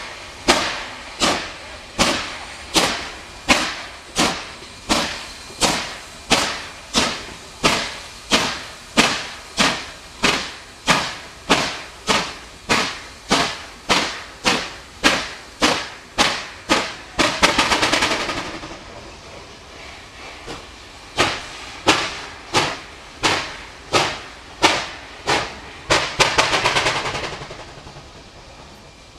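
NSW C38-class steam locomotive 3801 working hard at walking pace, its exhaust giving sharp, even beats a little under two a second. Twice, about two-thirds of the way in and again near the end, the beats suddenly race into a rapid flurry: the driving wheels slipping on the wet, greasy rail. After each slip the exhaust falls quiet.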